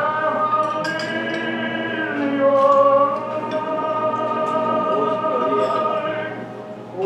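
Operatic singing from a 1930s film soundtrack played over loudspeakers in a room: long held notes with musical accompaniment, easing off near the end.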